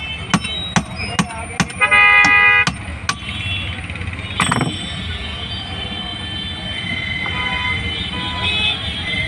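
A quick series of sharp taps, about two or three a second, then a vehicle horn honks once for just under a second, the loudest sound here; steady street traffic noise runs behind.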